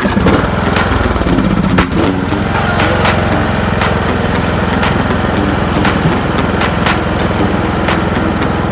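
Small engine of a grass-cutting machine running steadily. It cuts in abruptly at the start and stays at an even, loud level.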